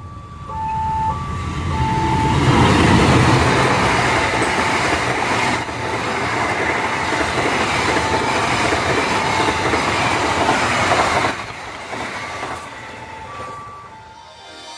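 Passenger train KA 82 Taksaka running past over a level crossing at speed, its wagons passing close by, while the crossing's warning bell rings in repeated alternating two-tone dings. The train noise cuts off suddenly about eleven seconds in, leaving the crossing bell alone.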